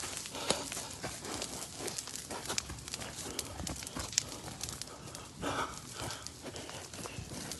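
Burning pine undergrowth crackling, with many irregular sharp snaps and pops, and a short rushing burst about five and a half seconds in.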